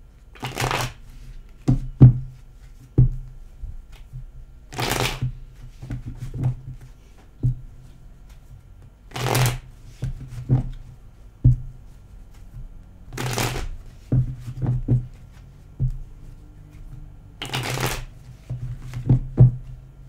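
A deck of tarot cards being shuffled by hand: a rustling slide of cards five times, about every four seconds, with many short clicks and taps of the cards in between.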